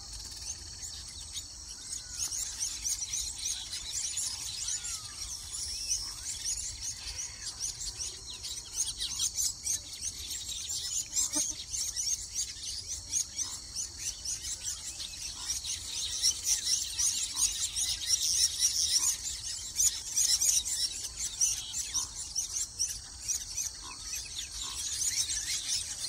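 Weaver-bird colony chattering: a dense, unbroken mass of high, rapid chirps and twitters from many birds at once, growing louder from about halfway through.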